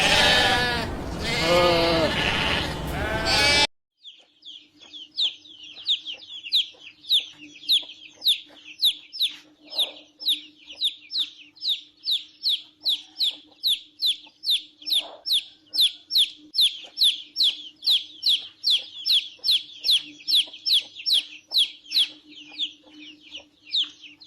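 Animal calls: a loud, harsh call in the first few seconds, then a long, regular run of short, high, falling chirps, about two a second, over a steady low hum.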